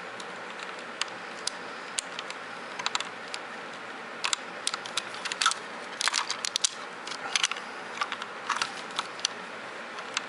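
Hard plastic parts of a 2001 Robots in Disguise Optimus Prime toy clicking and rattling in the hands as its gun is worked into the storage spot on the vehicle. The clicks are scattered at first and come thicker from about four seconds in, over a steady hiss.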